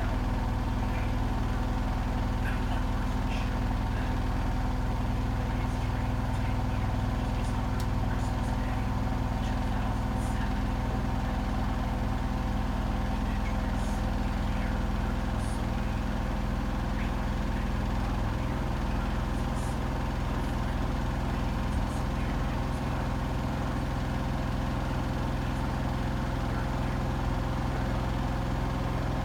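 Hotpoint WMFUG 942 washing machine running with a steady, unbroken motor hum and a few constant tones, its drum turning at an even speed, with faint light ticks now and then.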